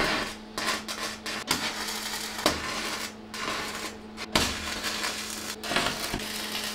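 Stick (electrode) arc welding crackling and sputtering as steel blades are tack-welded onto a snowblower auger. The arc comes in several stretches broken by short pauses, over a steady hum.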